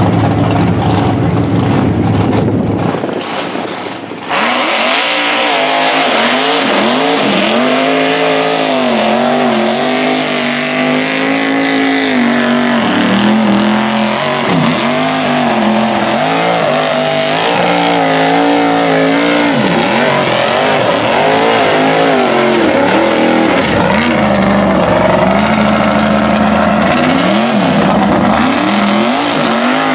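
Lifted mud-bog truck on tractor tires running its engine hard through a deep mud pit. Its revs rise and fall over and over as the tires churn. For the first few seconds there is steady lower engine running, then the hard revving starts about four seconds in.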